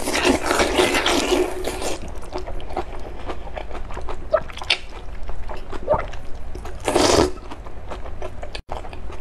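A person slurping wide, flat sesame-sauce mianpi noodles. There is a long wet slurp over the first two seconds and a shorter one about seven seconds in, with small wet mouth clicks between.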